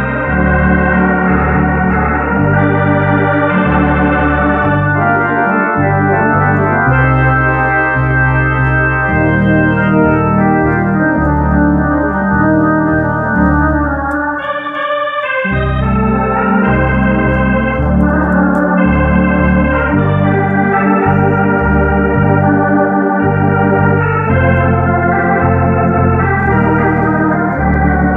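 Hammond B-300 organ playing a slow melody over sustained chords and a moving bass line, both hands on the manuals; the bass drops out for about a second about halfway through, then comes back.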